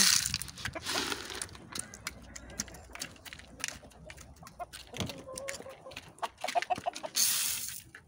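Mixed corn and wheat poured from a scoop into a metal feed pan, a brief rushing hiss at the start and again near the end. In between, chickens peck at the grain with many sharp clicks, and a hen gives a quick run of clucks about six and a half seconds in.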